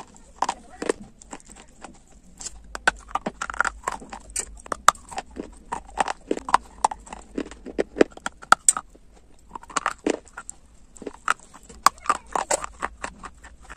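Close-miked biting and chewing of a hard, dry grey clay bar: crisp crunches several times a second, with a brief pause about nine seconds in.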